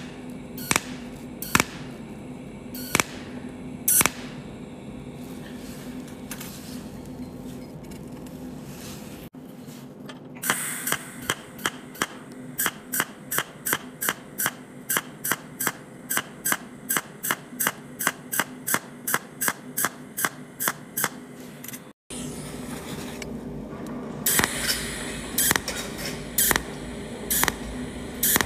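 Pulsed arc of a cold welding machine spot-welding with a tungsten electrode and filler wire, each pulse a short sharp snap: a few spaced snaps, then a steady run of about two a second, then a quicker cluster near the end, over a steady low hum.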